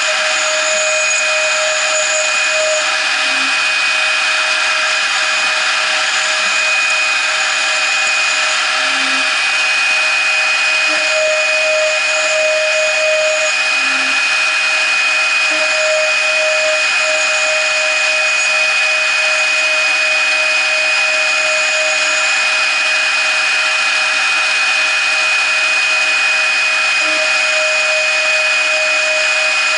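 CNC router's 0.75 kW spindle running at a steady high whine while a 2 mm end mill cuts aluminium angle in shallow passes, with a lower cutting tone that comes and goes as the tool moves through the metal.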